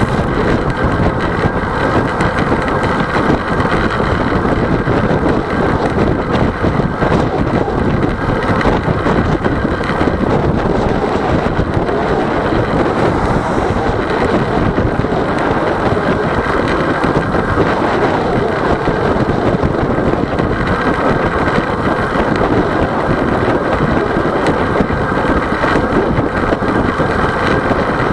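Steady rushing wind buffeting the microphone of a bicycle-mounted camera, with road and tyre rumble from riding on pavement at speed.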